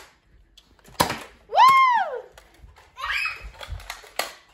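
Sharp snaps of a Nerf blaster firing foam darts, two about three seconds apart. Between them a high-pitched squeal rises and falls, followed by giggling.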